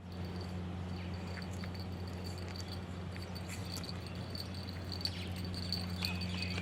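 Crickets trilling in a steady high-pitched chorus over a steady low hum, with scattered faint ticks.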